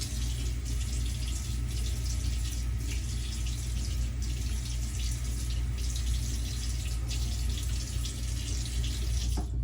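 Cold water running from a tap into a sink, with splashing as a face is rinsed after a shave. The water stops abruptly near the end.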